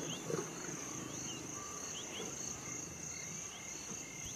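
Night insects: a steady high-pitched cricket trill, with short faint chirps repeating over it.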